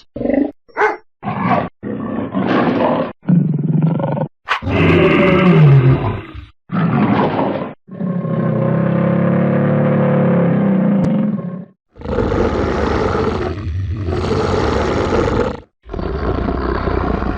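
A run of about a dozen separate animal sound-effect clips played back to back: four very short calls in the first two seconds, then longer calls of one to four seconds each, among them roars of large animals.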